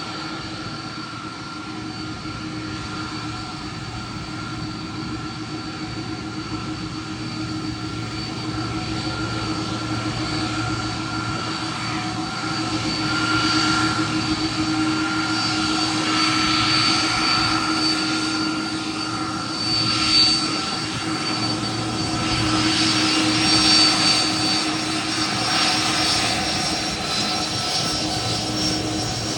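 Delta jet airliner's engines whining at taxi power, a steady rush with several held tones, growing louder over the first half as the plane approaches, with brief swells about two-thirds of the way through.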